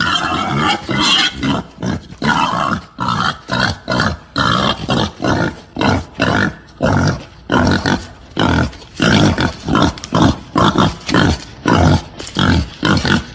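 Wild boar grunting and squealing in short, loud calls repeated about two to three times a second: a recorded lure call for drawing in wild boar.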